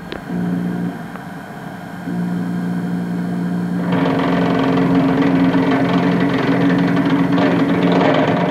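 Emco F1 CNC milling machine running a cut: a steady motor hum, joined about four seconds in by a louder, rougher noise of the spindle and cutter milling into a metal block. The spindle-head bearings were not correctly adjusted.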